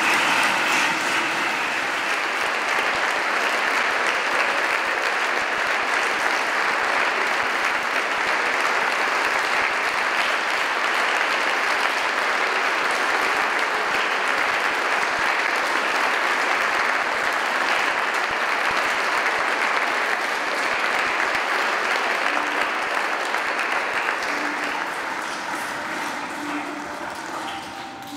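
Congregation applauding with steady, dense clapping that fades away over the last few seconds.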